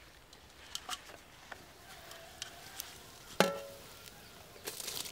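Faint handling sounds of a steel cooking pot of washed rice: scattered small clicks, one louder metallic clank with a short ring about three and a half seconds in, and a brief hiss near the end.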